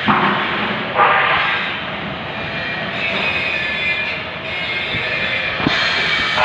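Loud industrial workshop noise from metalworking machinery: a steady, noisy din with sudden surges near the start, about a second in and near the end, and a brief higher-pitched whine in the middle.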